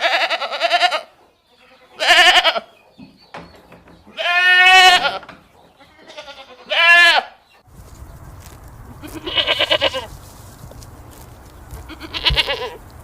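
Bleating from goats or sheep: six separate wavering calls, each up to about a second long, spaced about two seconds apart. Partway through, a steady low background hum comes in behind the calls.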